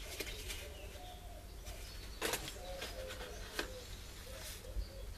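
A paper seed packet being torn open and handled, heard as a few short crackles, over a bird's repeated low calls in the background.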